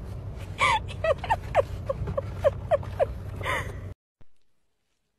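A small animal whimpering in a rapid series of short, high squeaks over a steady low drone; the sound cuts off suddenly about four seconds in.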